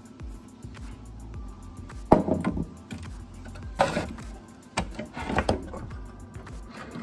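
Background music, with a few sharp knocks and clacks about two, four and five seconds in as a roller on its shaft is handled and fitted into a belt vibrator machine's housing.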